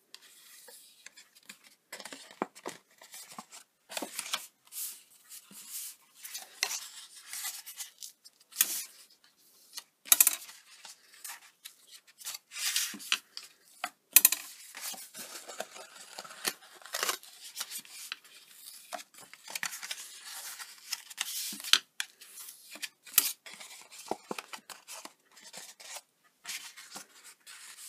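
Bone folder rubbing along the score lines of die-cut cardstock to burnish them lightly: a run of irregular short scraping strokes, mixed with the rustle of the card being moved and turned on the mat.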